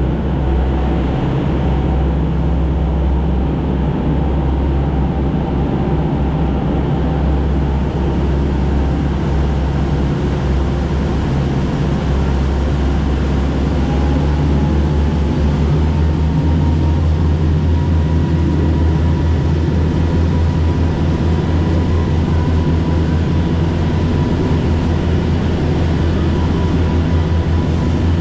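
Ferry's engines running steadily under way, a deep drone with the rush of the churning wake over it, growing a little louder about halfway through.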